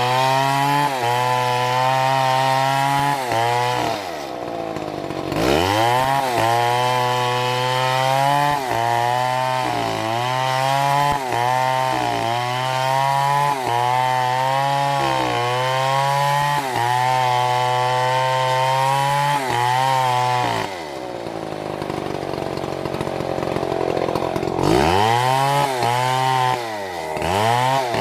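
Two-stroke chainsaw running at high revs, cutting wood, its pitch dipping briefly again and again as the chain takes the load. Twice the throttle is let off and the engine drops to idle, briefly near the start and for several seconds in the last third, before it revs back up.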